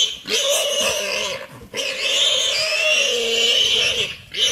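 An animal squealing loudly and almost without stopping, its pitch wavering, broken by two short pauses. These are the distress squeals of prey caught by a leopard.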